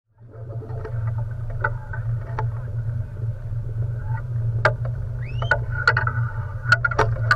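A watercraft engine running steadily, with sharp knocks from about halfway on and a short rising squeal just after the middle.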